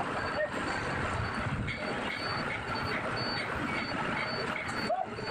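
Heavy machinery running with a steady noisy rumble, and a short high-pitched beep repeating about twice a second, like a machine's travel or reversing alarm.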